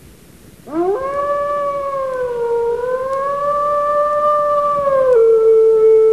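A long howl: a single voice glides up about a second in, holds a slightly wavering note for about four seconds, then steps down to a lower held note.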